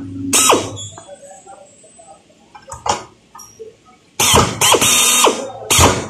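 Handheld pneumatic drill on an air hose, run in short trigger bursts against an aluminium curtain-wall profile. The longest burst comes about four seconds in, and the whine falls in pitch as the motor spins down after each burst.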